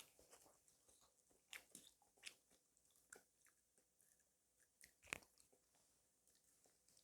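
Close-miked eating sounds: chewing and mouth noises, with irregular sharp clicks, the loudest about five seconds in.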